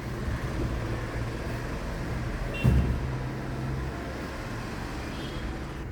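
Sofa cushions being put back on a sofa, with one soft thump about three seconds in, over a steady low rumble.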